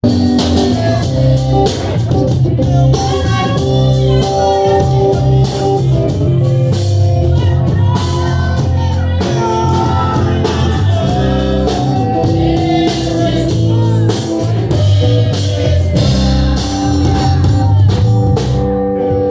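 A band playing, with drum kit, guitar and bass under a melody line.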